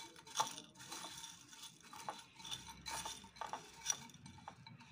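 A spatula stirring crushed Maggi noodles with chopped onion and tomato in a bowl: irregular scraping and light clicks, several a second.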